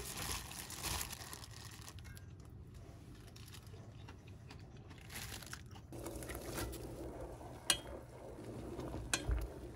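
Crinkling and rustling handling noise with scattered light clicks, quieter in the middle, then a sharp tap near the end and a couple more just after.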